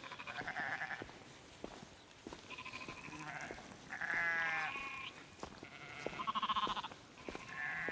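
Sheep bleating, about five wavering calls at different pitches from several animals, some overlapping.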